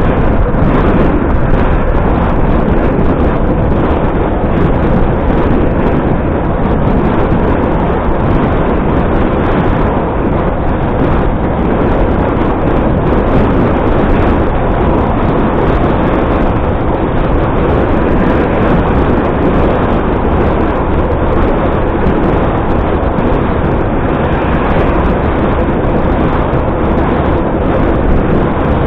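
Steady, loud rushing and rumbling noise of wind and road on an action camera's microphone while riding a bicycle along a road.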